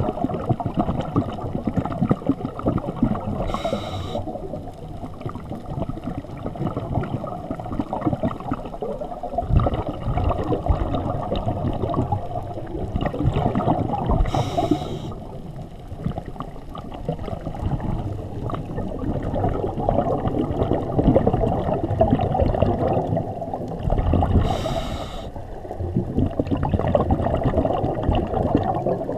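Scuba diver breathing through a regulator underwater: three brief hissing inhalations about ten seconds apart, each followed by a long stretch of bubbling, gurgling exhaled bubbles.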